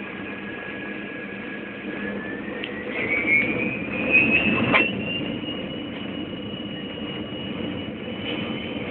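Jet airliner engines spooling up for take-off, heard from inside the cabin: a whine that rises in pitch over a few seconds and then holds steady over a rumble. There is a knock about halfway through.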